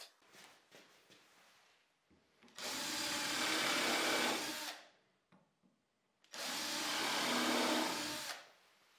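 Cordless drill boring into a wooden strip: two runs of about two seconds each, the first a couple of seconds in and the second near the end, each at a steady motor pitch. Light handling knocks come before them.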